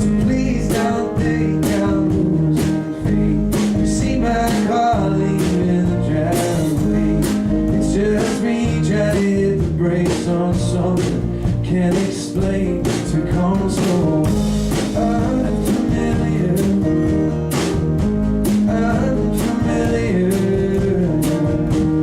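Live band playing a country song, with guitar and drum kit keeping a steady beat.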